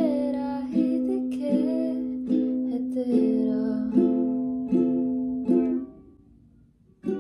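Ukulele strummed in a steady rhythm, a chord about every three-quarters of a second, with a woman singing along. It dies away about six seconds in, then the strumming starts again just before the end.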